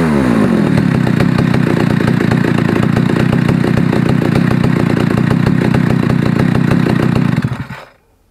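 Stihl 050 AV two-stroke chainsaw idling steadily with the chain not cutting, then stopping abruptly near the end.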